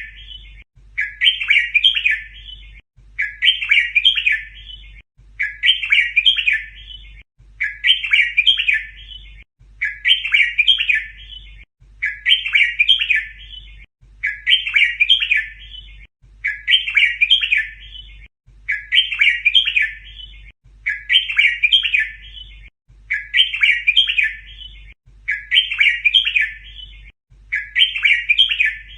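Red-whiskered bulbul song: the same short, chirpy phrase repeated about every two seconds, fourteen or so times. It is a tutoring recording for teaching young bulbuls the 'double' (เบิ้ล) song style.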